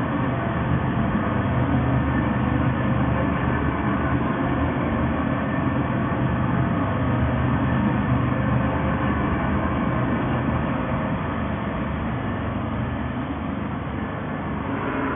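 PMC1000 planetary concrete mixer running steadily, a continuous mechanical hum with steady low drive tones that eases slightly in loudness over the second half.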